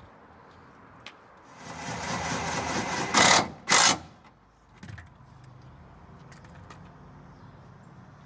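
Cordless impact wrench running a suspension bolt down, motor whirring for about a second and a half, then two short loud bursts as it snugs the bolt tight.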